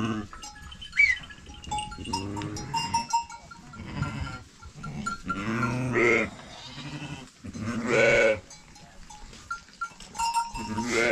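A flock of sheep and goats bleating, several loud bleats roughly two seconds apart, with small livestock bells clinking between them.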